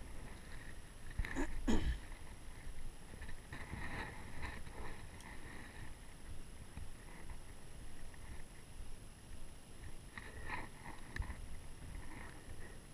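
Small fishing boat's hull sounds while sitting on calm water: a few light knocks and a short falling creak about a second and a half in, then scattered faint taps and another knock near the end.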